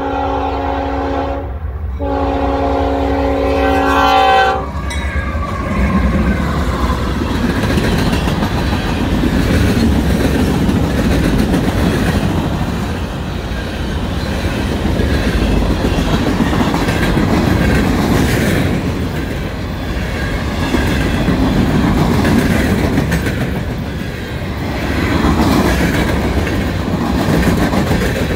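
Freight locomotive horn blowing a chord, with a brief break near two seconds and a final blast that cuts off about four and a half seconds in. The train then rolls past close by, and the ballast hopper cars' wheels rumble and clack steadily on the rails, swelling and easing slightly.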